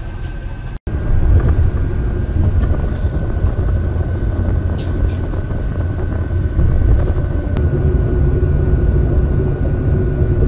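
Cabin noise inside an intercity coach travelling at highway speed: a steady low rumble of engine and tyres with a thin, steady whine above it. The sound drops out for an instant about a second in.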